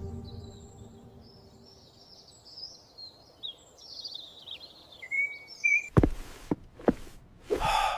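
Birds chirping and twittering in short, wavering calls, as the tail of a deep rumble fades out in the first second. A few sharp clicks follow about six seconds in, then a short breathy rush near the end.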